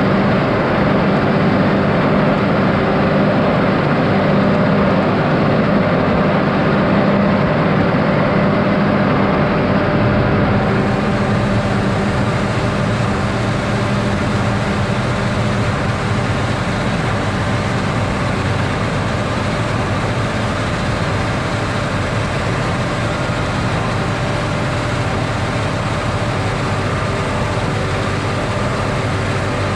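A 310 hp John Deere tractor's engine running steadily under load as it pulls a Krone Big Pack 1290 HDP XC large square baler, with the baler working.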